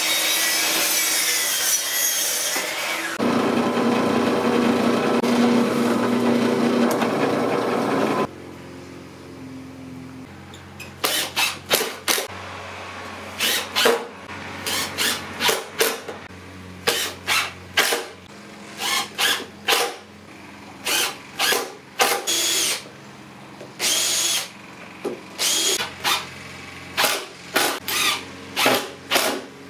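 A miter saw runs and cuts through a plywood panel for about eight seconds. After that, a cordless drill whines in many short bursts of about half a second each as it drills into a clamped plywood box.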